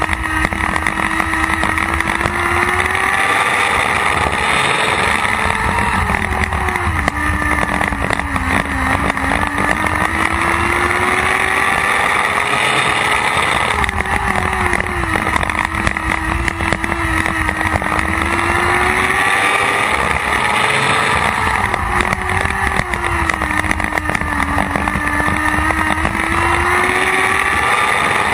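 Lightning sprint car's motorcycle engine running at racing speed, heard from on board with wind noise. The engine note climbs and then sags in a repeating cycle about every eight seconds, lap after lap around the oval.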